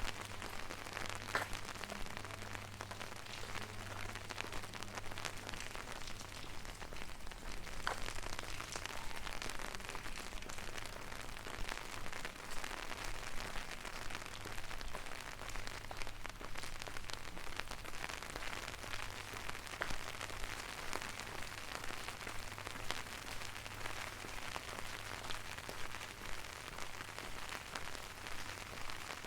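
Steady rain falling, an even hiss dotted with many small drop ticks, over a faint low hum.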